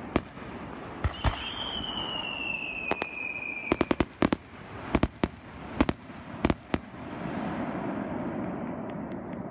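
Aerial fireworks shells bursting with about a dozen sharp bangs, several in quick succession around four seconds in. A whistle slides slowly down in pitch from about one second to just before four seconds. In the last couple of seconds the bangs stop and a steadier noise remains.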